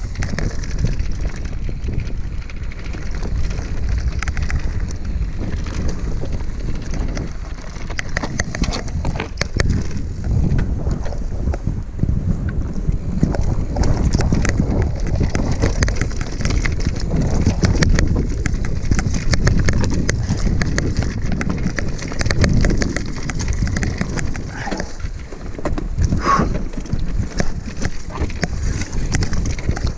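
Wind buffeting an action camera's microphone as a mountain bike rolls down a rocky dirt singletrack, with tyres crunching over stones and the bike rattling throughout. A brief squeal about four seconds before the end.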